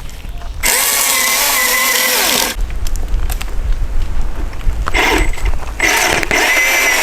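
Milwaukee M18 FCHSC cordless battery chainsaw running in three bursts of electric motor whine while cutting a large dead branch: a two-second burst under a second in, then after a pause a short burst and a longer one that runs on.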